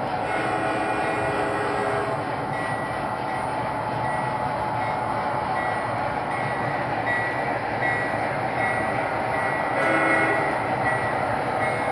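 MTH O scale model trains running, their wheels rumbling steadily on the track. Horn sound effects from the locomotives sound near the start and again about ten seconds in.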